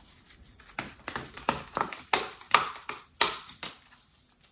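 A deck of oracle cards being shuffled by hand: a quick, irregular run of sharp card slaps and flicks, about four or five a second, starting about a second in.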